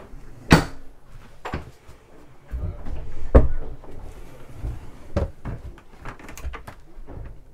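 A series of sharp knocks and clicks from the yacht's cabin joinery being handled, such as a door or locker opening and closing. The loudest comes about half a second in and another about three seconds in, with a low rumble around it.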